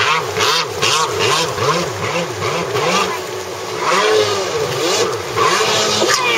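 Freestyle stand-up jet ski engine revving up and down in quick pulses, about three a second, with a rush of water and spray, then running more steadily near the end.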